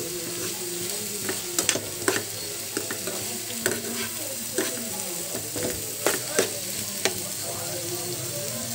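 Chopped onions, tomatoes and capsicum frying in oil with a steady sizzle. A spatula stirs them, scraping and tapping the pan every second or so.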